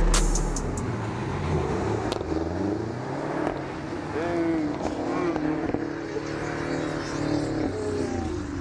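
Car engine revving hard through a burnout, its pitch rising and falling, with the noise of spinning tyres.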